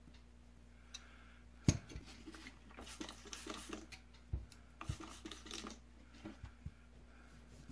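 A pair of pliers being cleaned by hand. A sharp knock comes about a second and a half in, then a few seconds of rubbing and scraping broken by small clicks and knocks.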